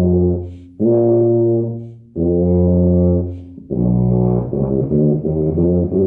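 Tuba played with the teeth clenched together, giving a pinched tone. Three held notes, then a run of quicker, shorter notes from about four seconds in.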